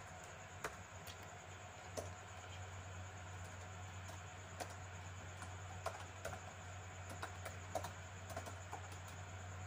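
Computer keyboard being typed on: faint key clicks at an uneven pace over a steady low hum.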